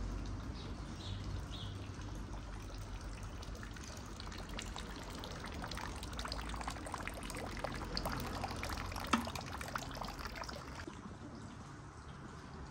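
Running water splashing and trickling steadily, with a crackle of small droplet clicks through the middle and one sharper click about nine seconds in; it thins out near the end.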